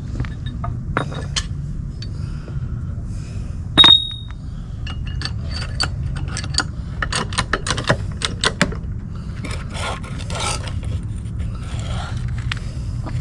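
Hand-tool work on wood and metal: scattered knocks, clicks and scraping, with one loud sharp metal clank about four seconds in that rings briefly. A steady low rumble runs underneath.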